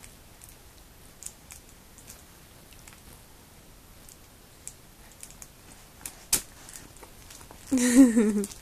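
Faint scattered clicks and soft rustling, then near the end a short babbling vocalization from an infant that wavers and falls in pitch.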